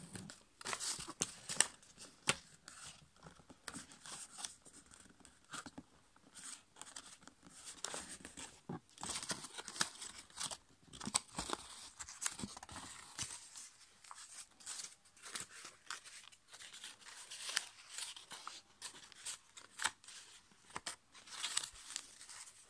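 Yellow A5 copy paper being folded and creased by hand: irregular crinkling and rustling with many short, sharp crackles.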